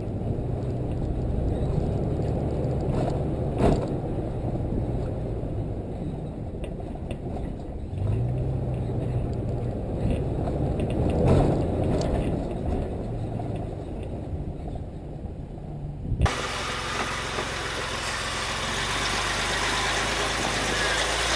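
Off-road vehicle engine running at low revs, with a rise in revs about eight seconds in and a few short knocks. About sixteen seconds in, the sound switches abruptly to a steady hiss over the engine.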